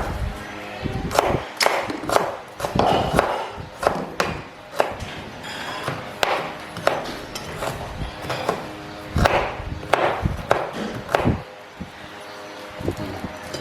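Kitchen knife chopping food on a wooden cutting board: a run of uneven knocks, some close together, with short pauses between groups.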